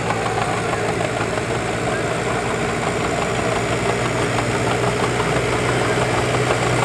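Farm tractor's diesel engine running steadily under load as it pulls down the tractor-pull track, a low hum that grows slightly louder as it comes closer.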